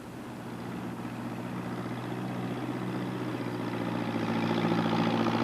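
A heavy machine's diesel-like engine running steadily and growing louder as it approaches: the forestry log-lifter arriving.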